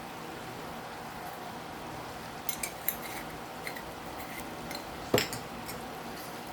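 Metal utensil clinking and knocking against a cooking pot: a few light taps, then one louder knock about five seconds in, over a steady low hiss.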